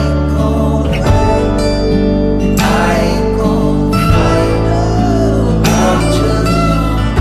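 Background music: an acoustic-guitar-led folk song, strummed chords changing every second or two.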